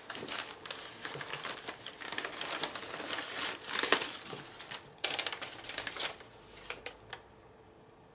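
Packaging being handled and unwrapped, crinkling and rustling for about six seconds, then dropping to a few isolated clicks.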